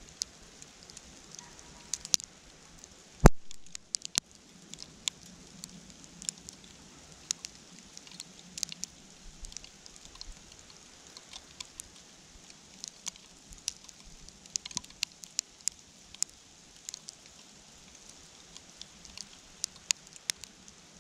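Scattered light ticks and taps at an irregular pace, with one sharp knock about three seconds in.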